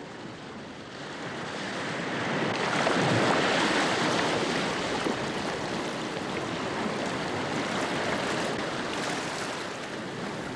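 Sea water washing and splashing, a rushing noise that swells about two seconds in and then holds steady.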